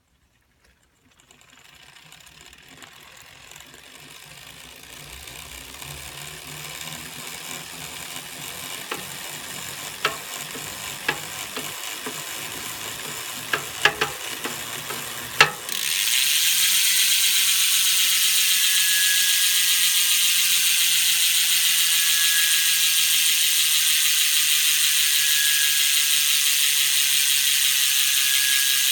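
imezi 167 carbon road-bike wheel's freehub ratchet buzzing as the wheel spins, growing louder over the first half with a few sharp clicks. About halfway it jumps suddenly to a much louder steady whirring buzz with a thin high-pitched tone over it. The high tone is the abnormal noise that appears above about 28 km/h, which the owner suspects comes from a weak press-fit around the hub bolts.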